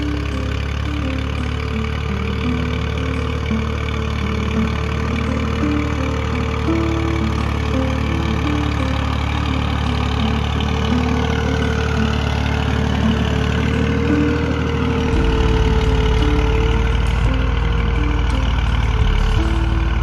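Farm tractor's diesel engine running steadily as it pulls a plough through the soil. A tune of stepped notes plays over it.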